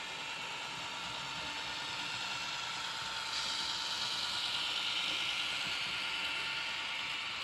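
H0-scale model train with a model of a red CFL G1206 diesel locomotive running on the track: a steady mechanical whirr and rolling rail noise with a light hiss, getting louder about three seconds in.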